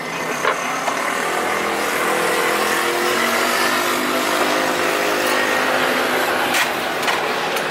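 A motor vehicle engine running close by, its pitch drifting slowly up and down over general street noise, with a few short clicks.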